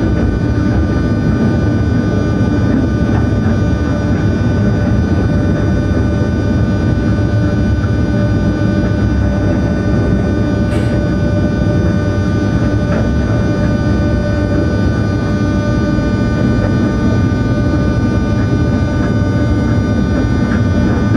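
Class 363 electric locomotive running at line speed, heard from inside its cab: a steady rumble of wheels on the rails overlaid by several steady whining tones from the electric drive. A single sharp click about halfway through.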